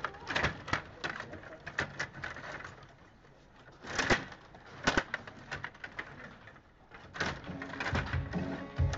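Table hockey game in play: irregular clicks and clacks of the plastic players, metal rods and puck on a Stiga Play Off rink. Near the end, music comes in.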